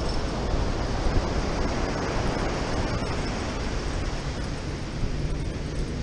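Ocean surf breaking and washing up the beach, a steady rushing, with wind rumbling on the microphone.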